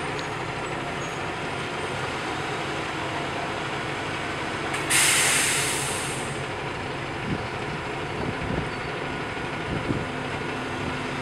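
Heavy engine running steadily, with a sudden loud hiss of compressed air about five seconds in that fades over about a second and a half. A few light knocks follow.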